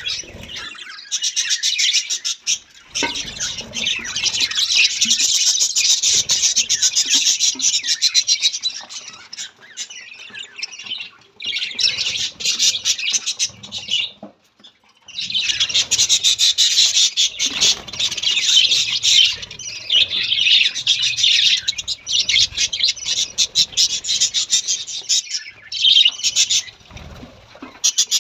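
Pet budgerigars chattering and warbling in rapid, high-pitched runs, with a couple of short pauses partway through.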